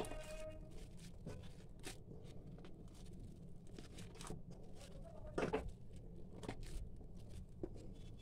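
A hand kneading soft mashed potato dough in a steel bowl: faint, irregular squishes, with a louder one about five and a half seconds in.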